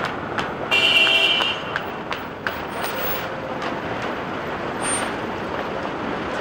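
City street traffic, cars passing over a busy crossing, with a short vehicle horn blast about a second in.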